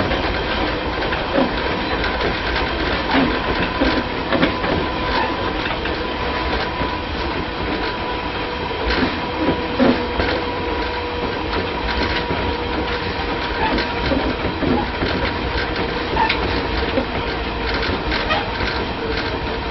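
Running noise inside a Tobu 5050 series electric train with nose-suspended traction motors: a steady whine over a dense rumble, with irregular knocks of the wheels over rail joints.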